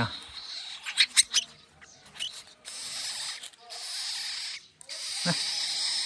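A nestling blue magpie begging to be fed: a string of hissing, rasping calls, each up to about a second long, with a few sharp clicks about a second in.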